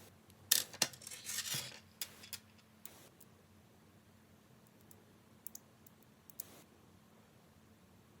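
Small magnetic balls clicking and rattling as they are handled: a busy burst of clicks in the first two seconds, then a few single clicks spread through the rest.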